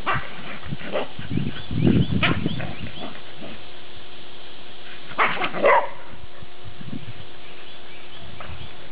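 Dogs barking in play: scattered short barks in the first few seconds and a louder cluster of barks about five seconds in.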